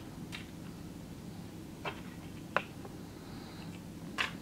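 A few sparse soft clicks and crackles of thin plastic display film being handled as a smartphone screen's light guide layer is pulled out by hand.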